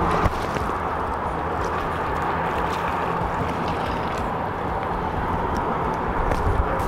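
Steady outdoor noise of wind buffeting the microphone and water along the shore, with a few faint taps.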